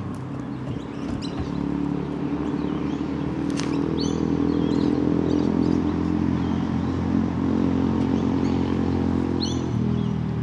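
A motor engine's steady drone, building over the first few seconds and easing off near the end. Birds chirp briefly twice.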